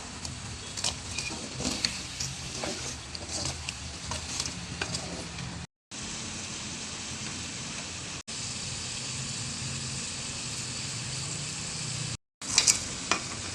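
Food sizzling in a hot pan, with a utensil stirring and scraping against the pan in irregular clicks during the first half. The sizzle then runs on steadily, breaking off briefly twice.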